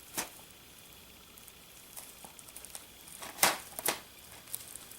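Handling noise: a few sharp clicks and light crinkling, with two louder rustling clicks about three and a half seconds in.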